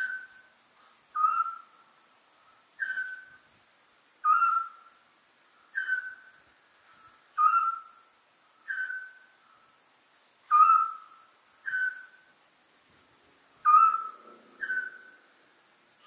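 Owls trading short whistled calls. A higher voice and a slightly lower one answer each other in turn, about one call every one and a half seconds.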